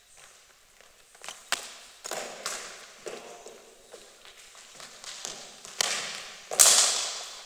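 Knocks and thuds of net practice in an echoing sports hall: a sharp crack of cricket bat on ball about a second and a half in, then scuffing footsteps and more knocks, with the loudest, ringing thud near the end.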